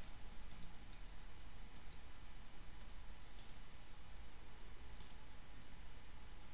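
Computer mouse button clicked four times, about one and a half seconds apart. Each click is a quick press-and-release pair of ticks, heard over a faint steady hum.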